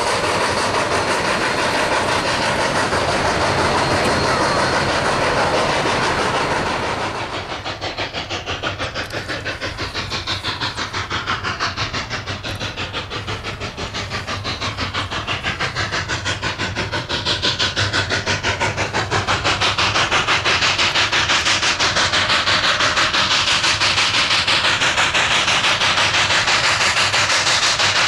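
Steam locomotive working under way: a quick, even exhaust rhythm over a steady hiss of steam. It drops back about seven seconds in, then builds up again.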